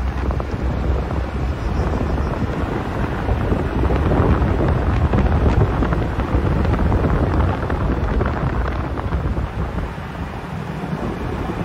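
Wind rushing over a microphone held out the side window of a moving Suzuki Jimny, with the car's engine and road noise underneath. It swells a little about midway.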